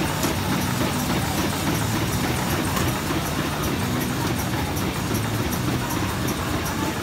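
MBO T960 paper-folding line with its automated stacker running in production: a steady, loud mechanical din with a low hum that swells and fades, and rapid light ticking on top.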